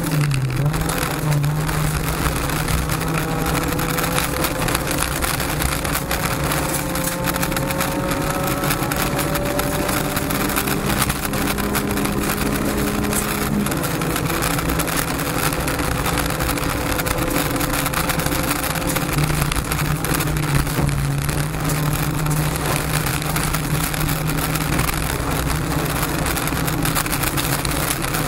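Honda Civic rally car's 1.6-litre four-cylinder engine heard from inside the cabin at sustained high revs, with a steady hiss of tyres on gravel. The engine note climbs slowly, then drops suddenly about halfway through.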